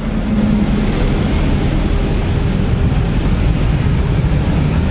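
Street traffic noise: a steady low rumble of engines, with a bus running close by early on and scooters and cars around it.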